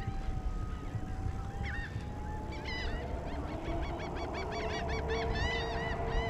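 A gull calling in a quick series of short, rising-and-falling laughing notes, a few scattered at first and then coming several a second from about halfway through.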